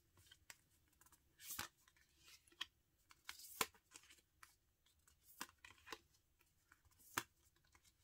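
Faint, irregular clicks and light scrapes of small glossy photo cards being slid apart and sorted in the hands. The handful of louder clicks comes at uneven intervals.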